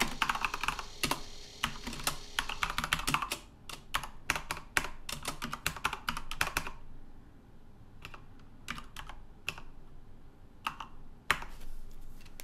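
Typing on a computer keyboard: a fast run of keystrokes for about the first seven seconds, then a few scattered key presses.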